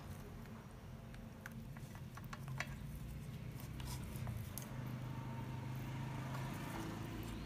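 Light clicks and taps of a metal spoon and wooden chopsticks against a steel pot as a whole raw chicken is pushed into place, most of them in the first half, over a low steady hum.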